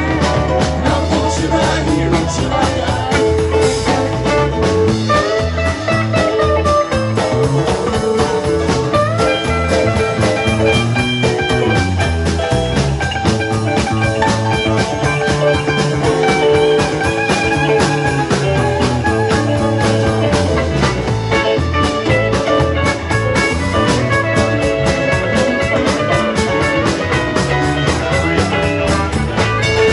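Rock band playing an instrumental stretch, with electric guitar lead lines over bass and a steady drum beat.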